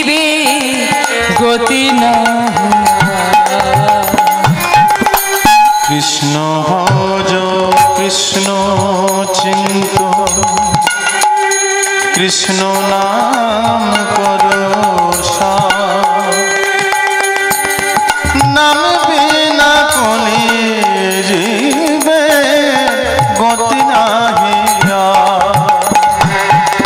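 Bengali devotional kirtan music: a woman singing a sustained melodic line over steady hand-drum strokes and instrumental accompaniment.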